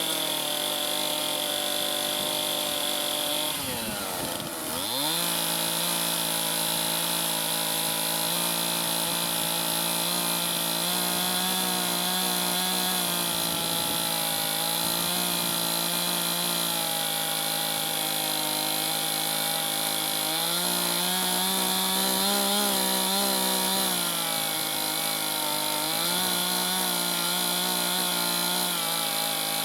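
Chainsaw running at high revs, cutting into a log. About four seconds in, the revs drop sharply and climb back. After that it runs steadily, its pitch rising a little twice later on.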